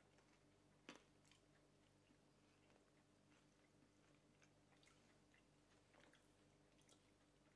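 Near silence: faint scattered small clicks and ticks over quiet room hum, with one slightly louder click about a second in.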